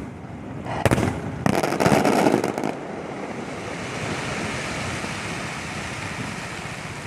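Electronically fired fireworks: a bang about a second in, then a dense burst of crackling explosions that stops at about three seconds, followed by a steady, even hiss.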